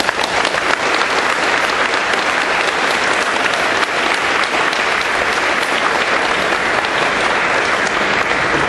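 A crowd of people applauding, a steady dense clapping.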